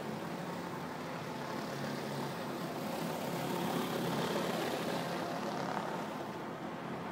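Pressure washer running on concrete: a steady drone with an even hiss, slightly louder in the middle.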